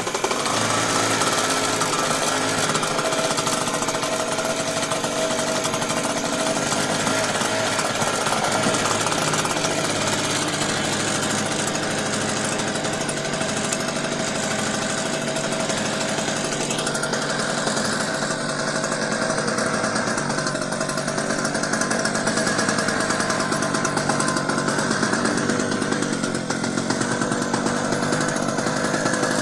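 The hard-starting generator's small engine running steadily.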